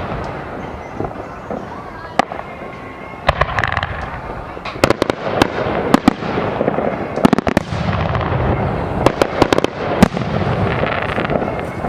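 Aerial fireworks bursting: many sharp bangs throughout, coming thickest in quick clusters in the middle and latter part.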